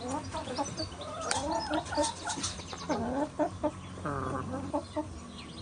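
Chickens clucking, many short calls overlapping one another, over a steady low hum.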